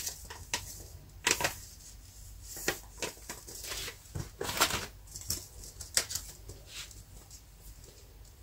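Scattered rustles and light clicks of hands handling tomato seeds and small sowing containers, with a few sharper ticks about 1.3, 2.7, 4.6 and 6 seconds in.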